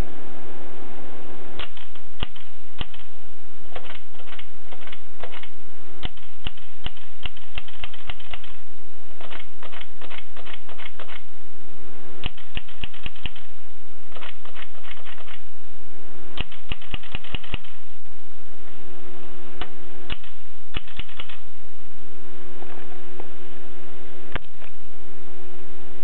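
Mignon index typewriter typing: runs of quick sharp clacks as characters strike the paper, broken by short pauses, with a steady hum in the gaps.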